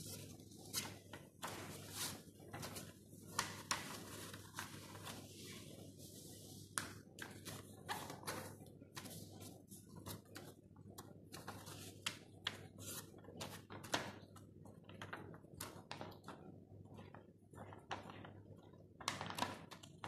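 A sheet of white paper being handled, folded and creased by hand: frequent short, irregular crinkles and rustles, over a faint steady low hum.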